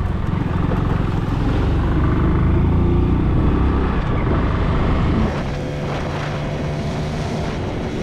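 Motorcycle engine running under way, a steady low rumble that eases off slightly about five seconds in.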